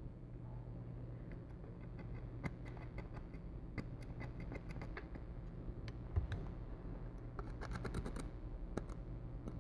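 Faint scattered ticks and light scrapes of a small cleaning tool picking at a phone's charging port, with a cluster of quick ticks near the end, over a steady low hum.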